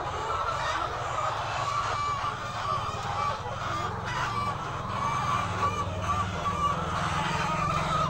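A large flock of white laying hens calling and clucking all at once: a dense chorus of many overlapping calls, over a steady low hum.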